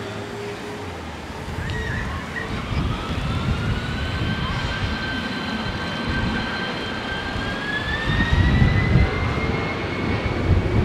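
Airliner engines running with a high whine that rises slowly in pitch, the noise growing louder over a low rumble, with wind buffeting the microphone.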